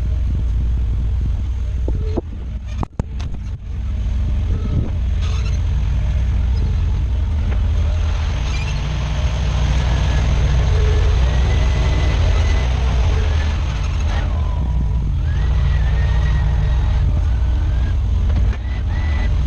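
Bobcat skid steer engine running steadily with a deep rumble, dipping briefly two to four seconds in, with a thin whine rising and holding over it in the second half.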